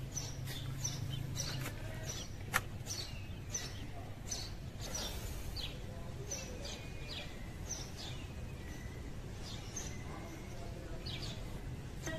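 Small birds chirping over and over in short, high, falling calls, over a steady low background hum, with one sharp click about two and a half seconds in.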